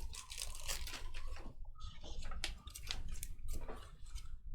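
Trading cards being handled and slid into plastic card sleeves: irregular rustling with short, light clicks.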